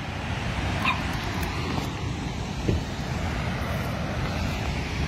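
Steady rushing of a rain-swollen river and spillway in flood, with a brief high squeak about a second in and a thump near the middle.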